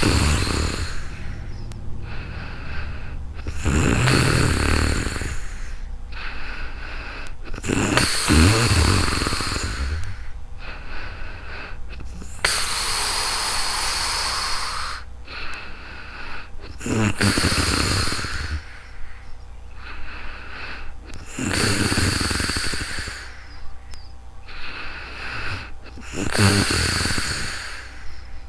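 A woman snoring in her sleep: about seven slow, heavy breaths, one every four to five seconds, several of them with a low rattling snore.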